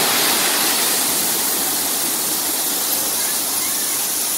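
Crushed stone chips pouring off the raised steel body of a Tata 3118 tipper truck onto a pile, a steady rushing noise of sliding gravel.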